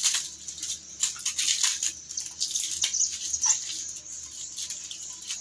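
Plastic wrapping crinkling and rustling in quick crackles as it is peeled off a motorcycle racing exhaust header pipe.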